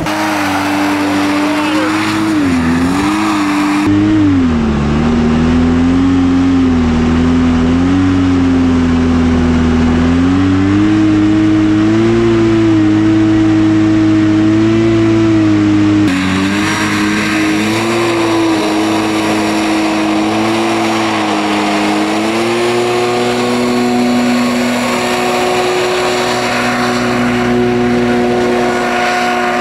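Hovercraft's two-stroke engine and fan running hard under way, the engine note dipping and rising with the throttle and then holding steady at high revs, over a rushing hiss of air and spray.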